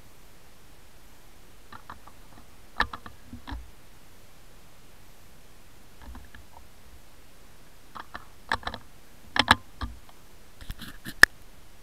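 Scattered light clicks and knocks of the camera being handled, in three small clusters, the sharpest one near the end, over a faint steady hiss.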